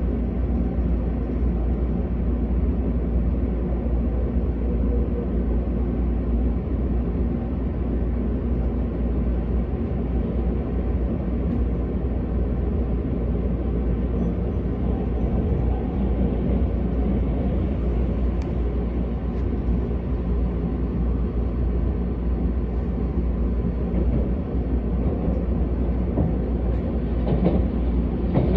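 Keisei AE-series electric train running at speed, heard from inside the passenger cabin: a steady low rumble of wheels on the rails, with a little more rattle near the end.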